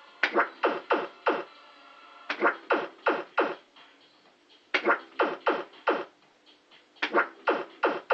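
Maygay Cash Gordon fruit machine's electronic sound effects during four quick spins in a row: each spin is a run of about four short, sharp bleeps, with a brief pause before the next spin.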